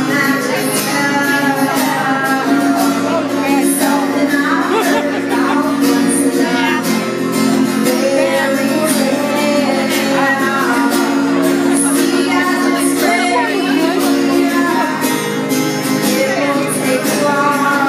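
Live solo performance: a woman singing and strumming an acoustic guitar, heard from within the standing audience in a concert hall.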